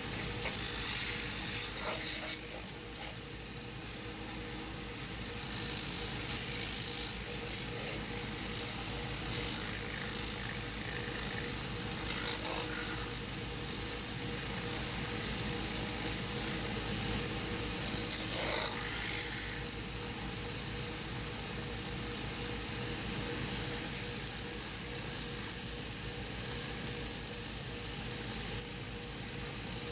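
Shoe-finishing machine running with a steady motor hum, and the rasp of a leather boot's sole edge being sanded on a spinning abrasive wheel, the pressure shifting as the boot is worked against it.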